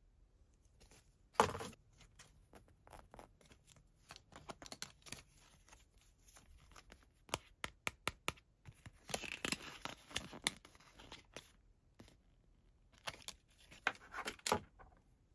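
Close-up handling of a plastic egg capsule and a small plush toy: a sharp plastic clack about a second and a half in, then scattered light taps and rustles. A denser crinkling of the cardboard hang tag comes in the middle, and a few more taps near the end.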